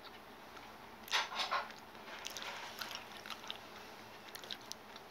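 Faint steady splashing of a small indoor wall waterfall fountain, with a short louder burst of sound about a second in and light scattered clicks after it.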